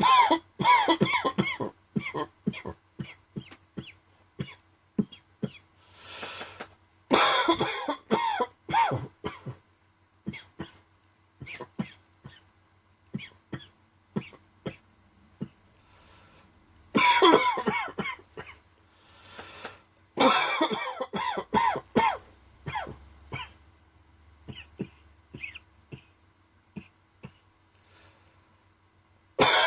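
A person's dry coughing fit: about four bursts of several coughs in a row, with short single coughs between them.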